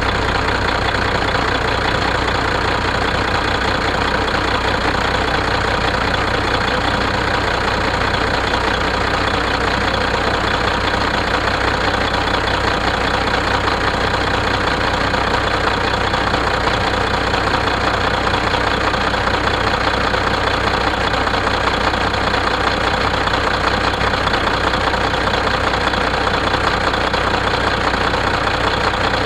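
Freshly rebuilt Caterpillar 3406E inline-six diesel idling steadily.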